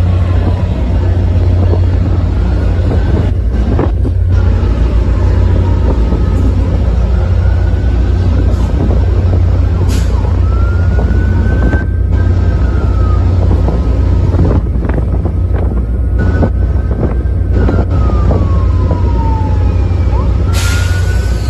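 Commuter-rail diesel locomotive, an EMD F40PH, running with a loud, steady low drone as its train moves through the station. Over it a siren wails slowly up and down.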